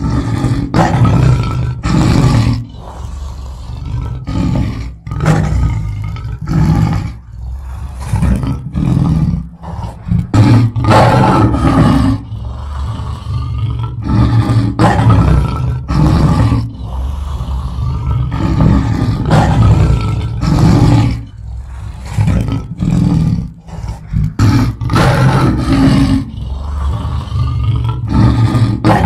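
Lion roaring and growling: a run of loud, deep, repeated calls with short breaks between them.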